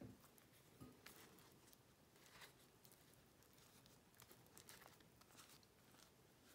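Near silence, with faint soft rustles and small clicks of hands handling paste-soaked paper strips.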